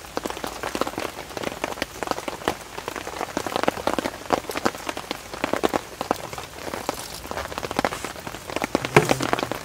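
Heavy rain falling on a tent and tarp: a dense, irregular spray of drops over a steady hiss. Rice is swished by hand in water in a steel bowl.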